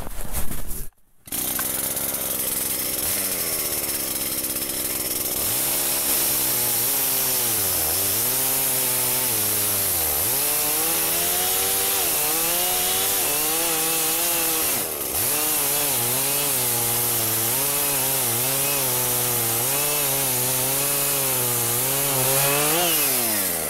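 Gas chainsaw cutting through a log. The engine pitch dips and recovers again and again as the chain loads in the wood, most deeply about ten seconds in, then rises near the end as the saw clears the cut. The bar's tabs are spread open to act like a badly worn bar, so the chain sits loose in the groove.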